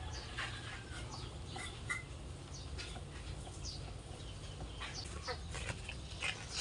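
Chickens clucking, with scattered short bird chirps over a low steady rumble.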